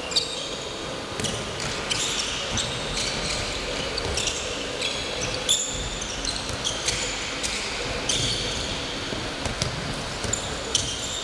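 Handball game play on a wooden hall floor: a handball bouncing and striking several times, sharpest about a quarter second in, midway and near the end, and sneakers squeaking in short high-pitched chirps as players cut and stop. The large hall gives it all an echo.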